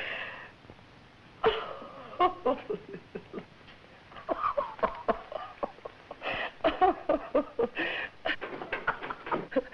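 A woman laughing to herself in short, broken bursts of chuckles, starting about a second and a half in and coming more often through the second half.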